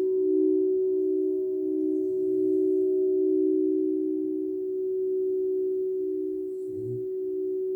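Crystal singing bowls ringing in a steady sustained drone of two close pitches, the lower one throbbing about twice a second, with fainter higher overtones. A brief low sound comes near the end.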